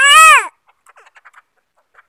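Caged crow giving one loud, nasal caw that rises and falls in pitch, about half a second long, followed by a few faint ticks.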